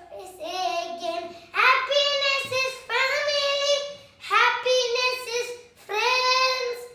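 A young boy singing a children's song in a high voice, in short phrases of long held notes with brief pauses between them.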